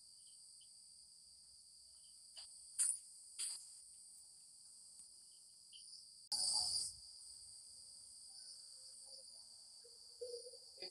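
Faint, steady high-pitched chirring of insects in the background, with a few faint short clicks and a brief burst of noise about six seconds in.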